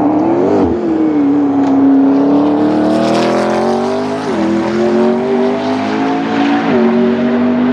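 Hypercar engine pulling hard under acceleration, its pitch climbing steadily and dropping sharply at two quick upshifts, one past the middle and one near the end.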